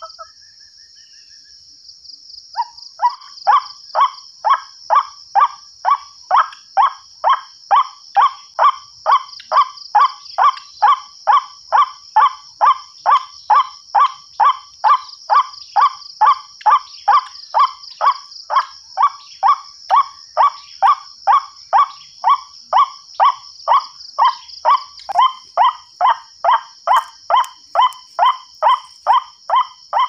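Recorded white-breasted waterhen (ruak-ruak) calls played through a mini horn loudspeaker as a trapping lure: a harsh call repeated very evenly about twice a second, starting after a pause of about two and a half seconds. A steady high-pitched drone runs underneath.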